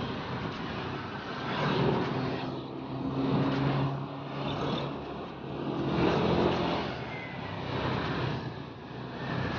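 Motor-scooter traffic heard from a moving scooter: small engines running and passing close by, with road and wind noise that swells and fades several times as scooters go past.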